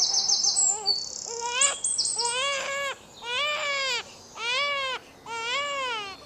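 A baby crying in a series of wails, each rising and falling in pitch and repeating about once a second, starting about a second in. Quick high bird chirps sound over the first two seconds.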